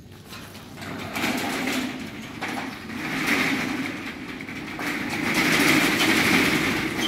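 Steel roll-up shutter door being pulled down by hand, its corrugated slats rattling as they unroll from the coil and run down the side guides. The rattle starts about a second in and grows louder toward the end.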